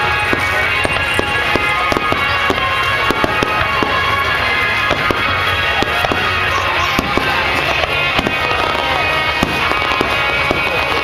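Fireworks going off in a rapid run of sharp bangs and crackles, with music playing underneath.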